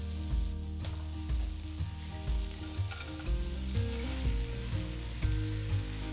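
Background music with held notes and a steady low beat about once a second, over a steady sizzle of vegetables frying in a pot as mashed potato is stirred in with a spatula.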